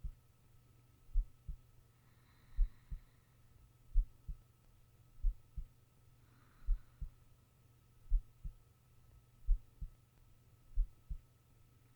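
A sleeping person's heartbeat picked up close, a slow double thump (lub-dub) about every 1.4 seconds, around 44 beats a minute, over a faint steady hum.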